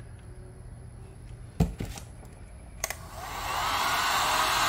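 A knock about a second and a half in, then a heat gun clicks on near the end and its fan spins up with a rising whine into a steady blowing, warming the adhesive grip tape on a Glock pistol's frame.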